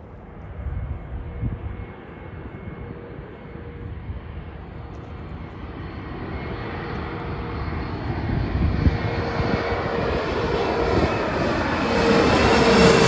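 Jet airliner's engines growing steadily louder as it approaches, a rushing roar with a steady whine that dips slightly in pitch near the end as it passes close.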